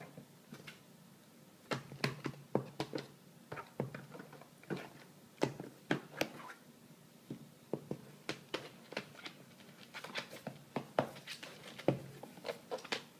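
A toco toucan scrambling and flopping about inside a fabric sewing box: irregular light knocks, taps and scratches, coming in quick clusters with short pauses between.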